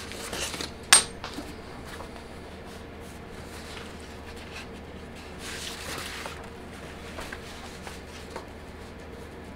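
Small metal workpieces being handled on a workbench: one sharp metallic clink about a second in, then quieter rustling and handling, over a steady low hum.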